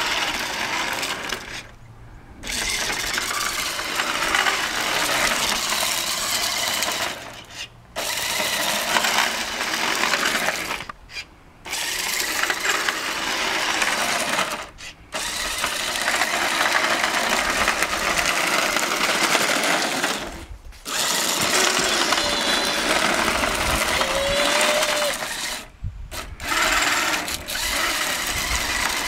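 Small electric motor and plastic gears of a toy remote-control Ferrari Enzo buzzing as it drives over asphalt, in runs of a few seconds with short stops between.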